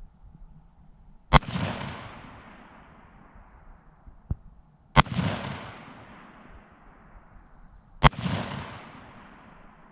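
Three single AR-15 rifle shots, spaced about three to four seconds apart, each sharp crack followed by a long rolling echo. They are slow aimed shots, fired to check a sight adjustment while sighting in.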